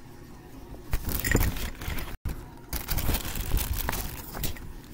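Sheets of paper notes rustling and rubbing right against the microphone as they are moved and propped into place, starting about a second in, with a brief dropout in the middle.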